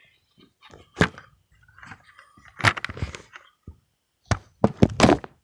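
A series of sharp knocks and clacks from objects handled and set down on a wooden desk. One stands out about a second in, a few more come a little before halfway, and a quick run of four or five knocks comes near the end.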